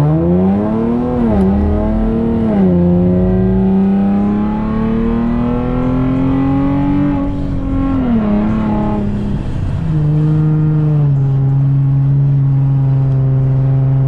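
Car engine accelerating through the gears: its pitch climbs and drops at upshifts about a second in and near three seconds, then makes a long slow climb, eases off around eight seconds, and settles into a steady drone for the last few seconds.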